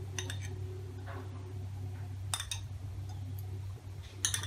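A few light clicks and clinks of kitchenware against a nonstick kadhai as cooking oil is poured in, over a steady low hum. The sharpest clinks come about two and a half seconds in and near the end.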